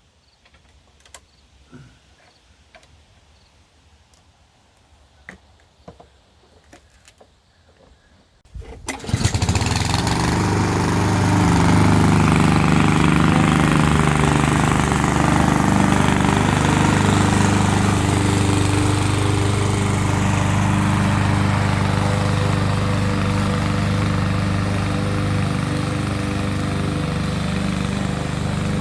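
Gasoline engine of a YardWorks walk-behind lawn mower catching abruptly about a third of the way in, then running steadily. Before it starts, only a few faint clicks.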